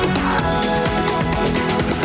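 Electronic theme music for a TV news programme's opening titles, with sustained synth tones over a steady beat.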